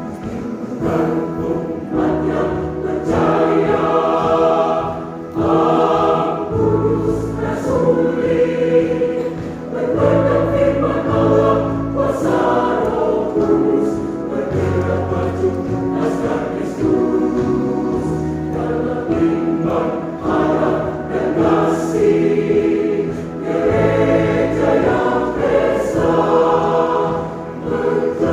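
Church choir singing a choral song in several parts, holding notes and moving in harmony.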